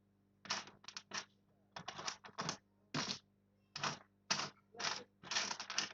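Small screwdriver turning the screws of a Dell laptop's screen mounting: about a dozen short, scratchy strokes at an irregular pace.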